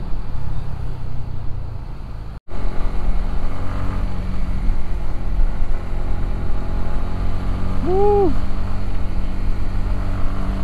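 Honda CB150X's single-cylinder engine running steadily while the bike is ridden, with a low engine note. The sound drops out for a moment about two and a half seconds in, and a short tone rising then falling in pitch is heard about eight seconds in.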